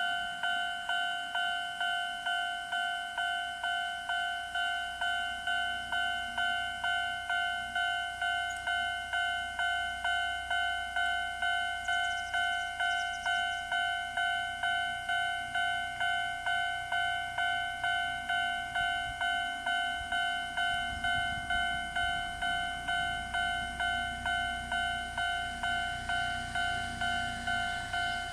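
Japanese level-crossing alarm in the old standard electronic tone, through a small speaker, dinging steadily at about two strikes a second. About twenty seconds in, the low rumble of a train comes in under the alarm.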